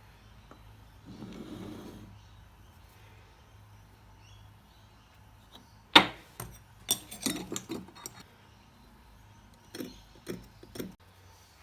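A sharp knock about six seconds in, then a quick run of clicks and knocks, and three more knocks near the end, with a brief rasping sound about a second in.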